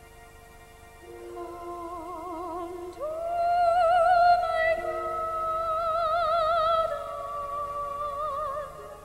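Soprano voice singing long held notes with wide vibrato over sustained orchestral chords in a stage-musical duet. The voice enters about a second in, and from about three seconds it holds a higher, louder note until near the end, when it fades.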